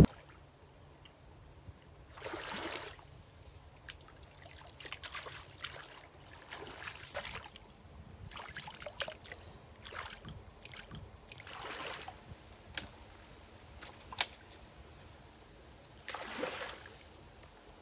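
Faint, intermittent water sounds, short splashes and trickles every couple of seconds, with a few sharp clicks; the sharpest click comes about three-quarters of the way through.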